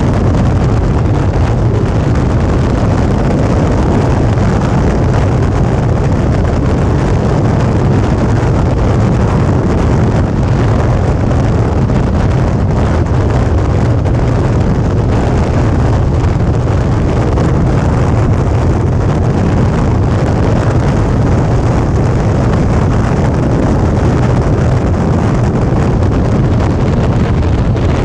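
Suzuki V-Strom 650's V-twin engine running steadily at cruising speed, with heavy wind noise on the microphone.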